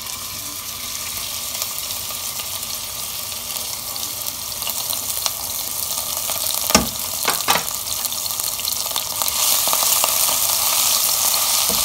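Ginger, garlic and green chilli paste sizzling in hot oil in a non-stick pan as it is sautéed and stirred with a spatula. The sizzle grows louder about nine seconds in, and two knocks sound a little past the middle.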